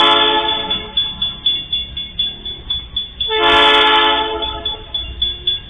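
A diesel freight locomotive's air horn sounds two blasts as the train approaches: a short one that cuts off under a second in, then a longer one of about a second and a half starting just past the midpoint. Under it runs a fast, regular ticking of about four beats a second.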